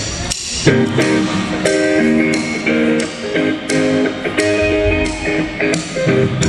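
Live rock band playing during a sound check: electric guitar chords ringing over a steady beat of sharp hits.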